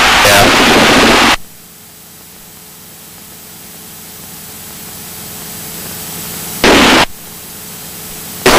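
Aircraft radio static in the cockpit audio feed. A loud hiss cuts off suddenly about a second in, leaving a faint steady hum that slowly grows, and a second short burst of static comes near the end.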